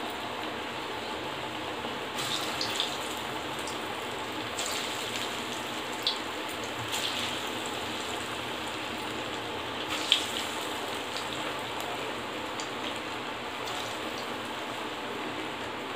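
Pakodi batter of masoor dal and drumstick leaves deep-frying in hot oil in an iron kadhai: a steady sizzle with occasional sharper crackles and pops. The loudest pop comes about ten seconds in.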